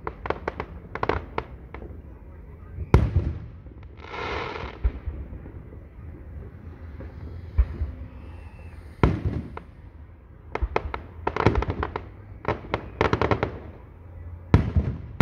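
Aerial fireworks shells bursting overhead: single sharp booms about three seconds in, about nine seconds in and near the end, with rapid runs of crackling pops between them.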